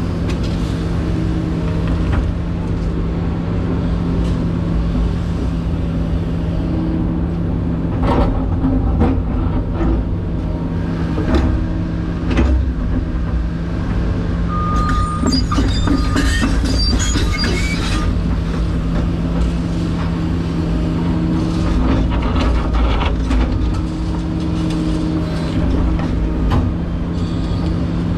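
Excavator's diesel engine running steadily from inside the cab while the hydraulics work the boom and bucket digging and dumping dirt. Scattered knocks from the bucket, and a patch of high squeaks and scrapes about halfway through.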